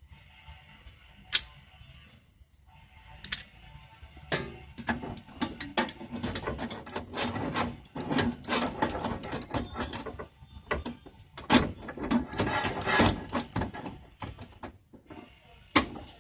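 Metal clicking and clattering as clamps are fitted and the sheet-metal patch panel is handled and set in place. There are a few sharp single clicks, the loudest near the start and near the end, and two long stretches of dense, irregular rattling in the middle.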